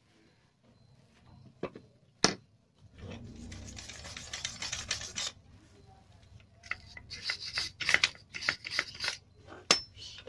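Old steel scissor jack being handled on a concrete floor: two sharp metal clicks, then a steady scraping rub for about two and a half seconds, then a quick run of scrapes and clinks ending in one more sharp click.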